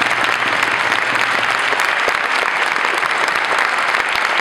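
A large audience of hundreds clapping together, a dense, steady applause.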